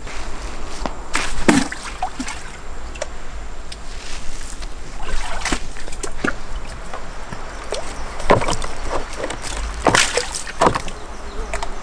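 A bucket on a rope knocking against the walls of a concrete-lined well as it is let down and drawn up, with water splashing and sloshing in it. The knocks come irregularly, a few loud ones standing out.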